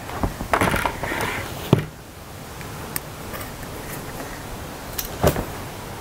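Handling noise from the parts of a battery multi-tool: a rustle lasting about a second, then a sharp click and a few separate clicks and knocks of plastic and metal parts, the loudest a knock near the end.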